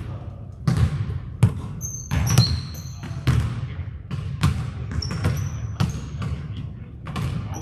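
Basketball being dribbled and bounced on a hardwood gym floor, about a dozen uneven thuds, with a few short high squeaks of sneakers on the court.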